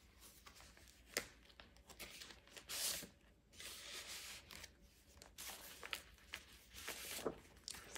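Thick cardstock pages of a handmade journal being turned and handled: soft paper rustles and slides, a tag drawn from a page pocket, and a few light clicks, the sharpest about a second in.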